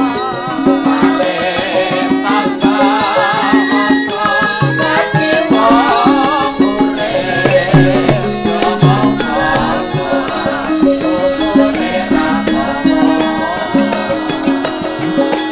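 Javanese gamelan ensemble playing steady repeating metallophone notes. Over them a female sinden voice sings a gliding, wavering line.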